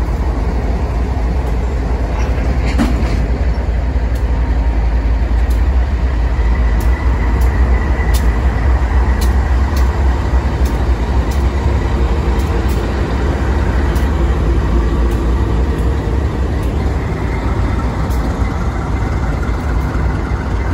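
Freight train with diesel locomotives and tank cars passing close by: a loud, steady, heavy rumble of engines and rolling wheels, with light sharp clicks every second or so.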